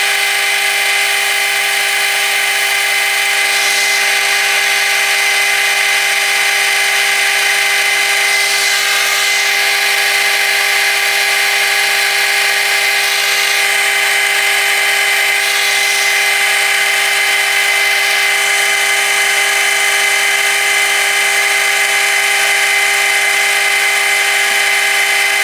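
Metal lathe running steadily with a constant gear-and-motor whine while emery cloth is held against the spinning metal workpiece to polish it, adding a rubbing hiss that swells and eases now and then.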